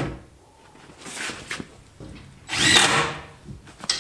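Cordless drill running in several short bursts as it drills into the panelling of an aluminium-framed cooler box. The longest and loudest burst comes past the middle, with a whine that rises and then falls.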